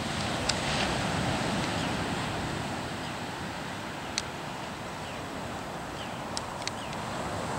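Steady wind on the microphone over the wash of gentle ocean surf, with a few short sharp ticks.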